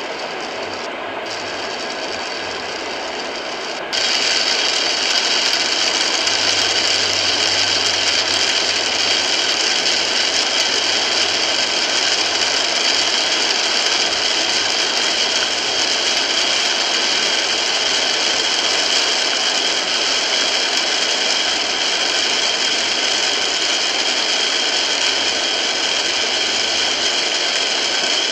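Heavy rain drumming on the car's roof and windshield, heard from inside the cabin as a dense, steady hiss-and-patter. It gets suddenly louder about four seconds in.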